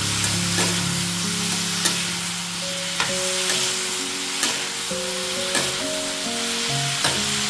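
Diced vegetables sizzling and frying in oil in a kadhai, stirred with a steel ladle that scrapes and knocks against the pan about six times, every second or so.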